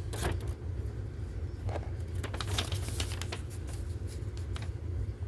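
Paper rustling and crinkling as a folded instruction manual is handled and its pages are turned, in short irregular bursts that cluster in the middle. Under it runs a steady low hum.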